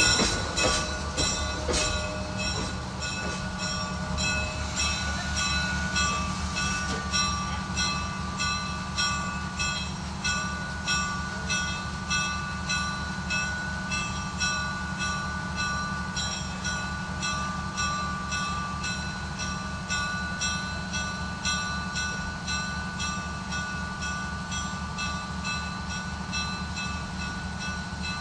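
Railway train rolling over rail joints with a regular clickety-clack, slowly growing quieter as it draws away. Steady high-pitched wheel squeal sounds over the rhythm.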